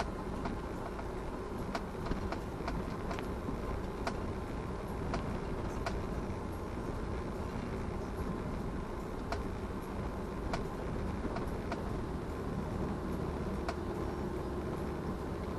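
A car driving, with steady engine and tyre noise and scattered sharp clicks and knocks every second or so.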